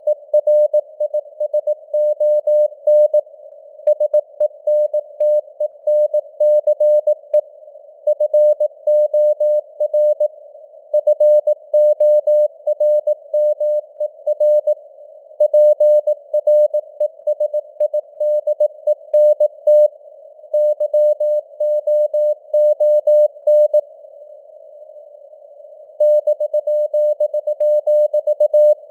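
Morse code (CW) sent at 18 words per minute as a single steady tone keyed on and off in dots and dashes, over simulated radio hiss with the signal strength varying. A longer gap between words comes about two-thirds through.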